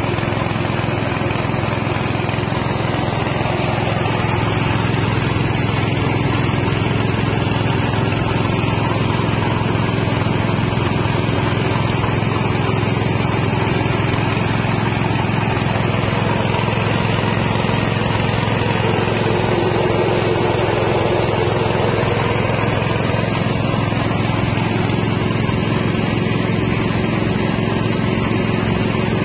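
Engine-driven Carlton rice milling machine running steadily under load, hulling and milling paddy into white rice. The machine noise is even and unchanging.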